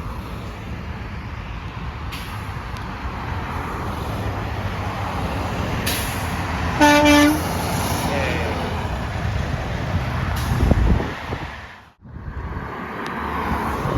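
Traffic noise with one short, single-tone truck horn blast about seven seconds in, lasting about half a second, from a Freightliner truck. A heavy vehicle rumbles past close by soon after, and the sound then cuts off abruptly for a moment before the road noise returns.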